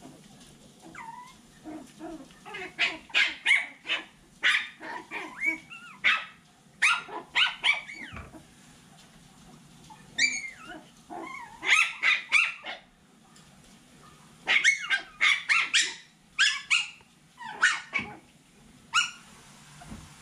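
Seven-week-old poodle puppies yipping and giving small high-pitched barks in quick runs of several calls each while they play-fight, with short pauses between the runs.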